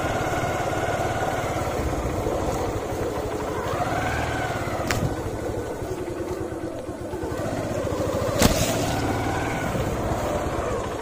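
Motorcycle engine running at low speed on a rough dirt trail, its pitch rising and falling with the throttle. Two sharp knocks, about five seconds in and again past eight seconds.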